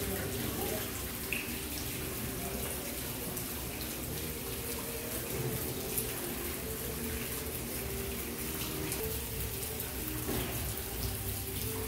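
Water running and splashing steadily down an indoor artificial rock waterfall into a shallow pool.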